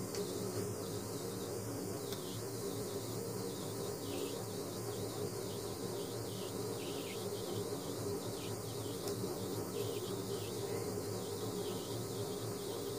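A steady, low electrical buzzing hum with no change in pitch or level.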